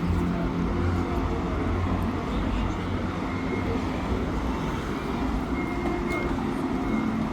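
Steady low rumble of vehicle noise with a low hum, level and unbroken.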